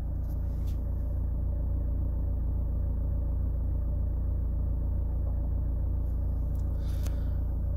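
Opel Insignia 2.0 (140 PS) engine idling with a steady low rumble, running on fresh GM Dexos 2 oil after an engine flush.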